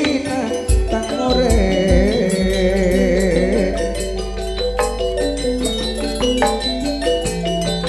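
Gamelan music: metallophones playing a stepped melody, with a wavering vocal line that ends about halfway through. Deep drum strokes come in the first couple of seconds, followed by a sustained low tone underneath.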